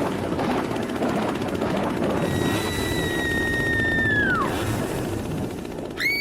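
Steady low rumble, with two high whistle-like tones over it: the first held about two seconds before sliding down and dying away, the second rising sharply near the end.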